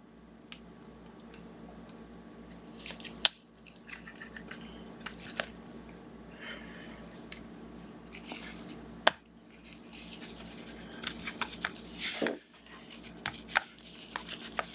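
Rustling and crinkling of a trading-card pack wrapper and cards being handled, with scattered clicks and a couple of sharp snaps, over a steady low hum.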